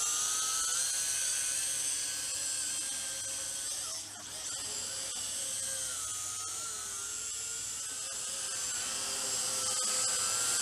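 Small UDI RC U829A quadcopter's motors and propellers whining in flight, the pitch wavering up and down as the throttle changes, with a brief drop in level about four seconds in.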